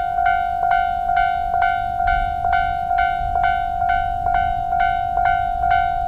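Japanese railway level crossing warning bell ringing in an even, repeated ding of a little over two strikes a second: the crossing is active, warning of an approaching train.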